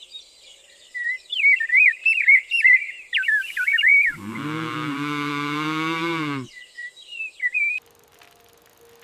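A songbird singing a fast, warbling song. About four seconds in, a long, low animal call of about two seconds breaks in, and the bird sings again briefly after it.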